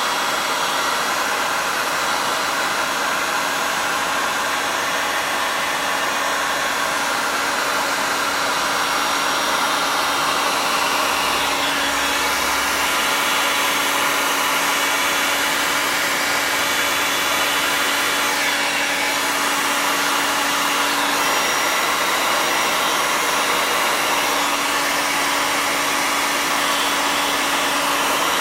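A 2000-watt heat gun running steadily, its fan blowing a constant rush of air over a steady low hum.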